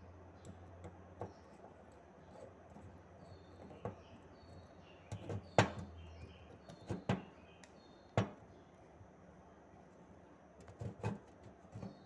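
Screwdriver working the head of a Telemecanique XCK-J limit switch loose: a few scattered sharp clicks and knocks of tool on the switch housing, the loudest cluster about halfway through.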